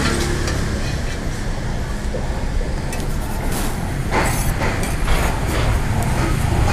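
A broad metal spatula scraping across a flat steel griddle as it slides under a thin crepe, several short scrapes from about halfway through, over a steady low background rumble.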